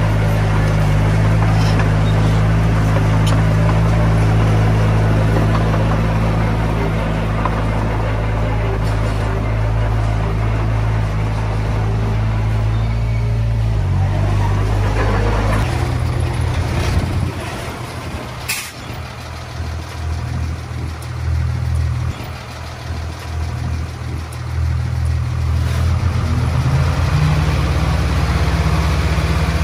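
Komatsu D20P bulldozer's diesel engine running steadily under load, then dropping in pitch and easing off about halfway through before building back up near the end. A single sharp click about two-thirds of the way in.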